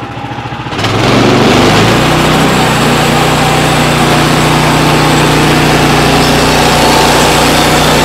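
Band sawmill's gas engine coming up from idle to full speed about a second in, then running steadily under load as the band blade rips along a dried white oak board to straighten its edge.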